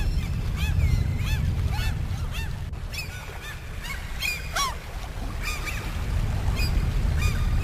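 A flock of birds calling over water: many short, rising-and-falling calls in quick succession, over a low rumble that fades somewhat midway and returns near the end.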